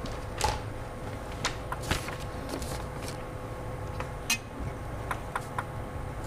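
Quiet table tennis hall between points: a low steady murmur with scattered, irregular sharp ticks and clicks from the court, as the server readies the ball.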